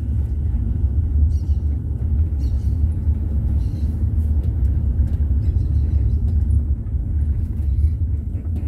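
Low, steady rumble of a Kombi van driving slowly, engine and road noise heard from inside the vehicle.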